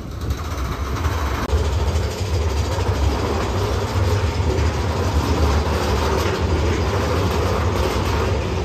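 Big Thunder Mountain Railroad mine-train roller coaster running along its track: a steady, loud low rumble of the wheels on the rails with rattling from the cars as the train passes through a rock tunnel.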